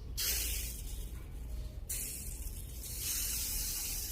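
Water hissing and sizzling into steam on the hot electric iron, in two spells with a short break a little before the middle. The sizzle shows the iron is heating again after the repair, since it has no indicator light.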